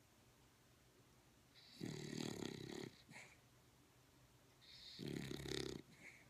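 A dog snoring in very deep sleep: two snores about three seconds apart, each lasting about a second.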